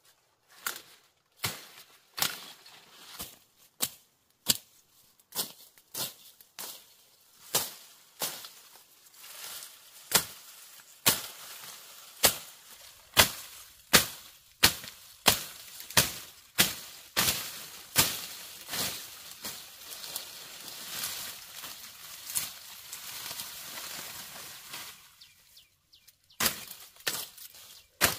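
Repeated sharp chops of a blade cutting through tall reed-like grass stalks near the base of a clump, a stroke about every second, with rustling of dry stalks and leaves between. The strokes thin out for a few seconds toward the end and are replaced by steady rustling, then resume.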